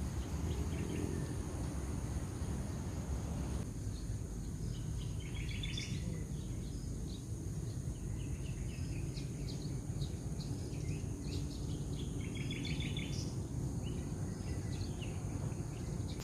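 Outdoor ambience: birds chirping, with two short rapid trills, one about a third of the way in and one near the end, over a steady high insect drone and a low steady rumble.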